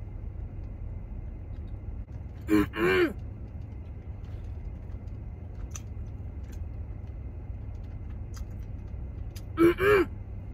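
A woman chewing a mouthful of fried chicken gives two short two-part closed-mouth hums, about two and a half seconds in and again near the end, with a few faint clicks of chewing. Under it a steady low rumble of the car runs inside the cabin.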